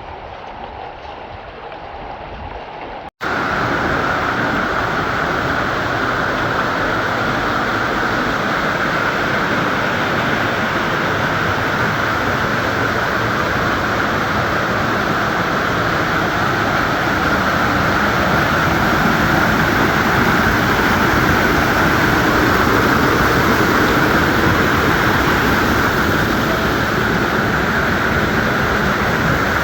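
Loud, steady rush of a waterfall, starting at a cut about three seconds in; before the cut, a quieter, muffled steady rush.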